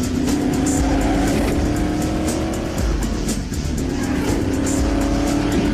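A car engine running with its note slowly climbing, over music with a steady beat.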